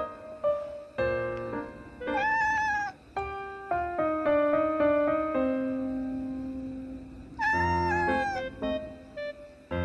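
A cat meowing twice, two drawn-out calls that waver in pitch, one about two seconds in and one in the second half, over background piano music.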